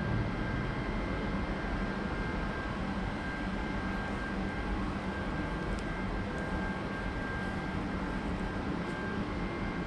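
Steady low drone of a metro system's background hum, with a faint high steady whine over it.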